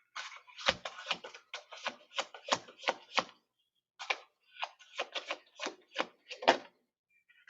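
Tarot cards being shuffled and handled: a quick run of sharp card slaps and taps, about three a second, with a short pause midway.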